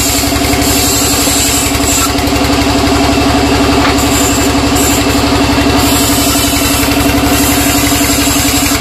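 Sawmill saw machinery running with a steady, fast-pulsing drone and a strong low hum.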